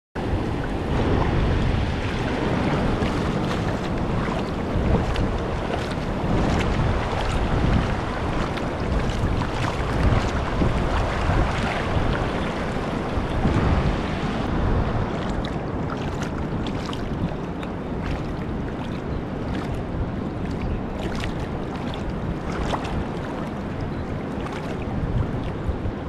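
Shallow sea water washing and lapping at the shore, with wind buffeting the microphone.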